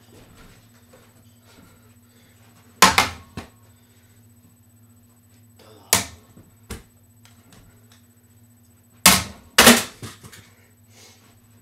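Objects thrown at a running electric fan, hitting and clattering: a loud knock about three seconds in, two more around six to seven seconds, and two close together about nine seconds in, over a steady low hum.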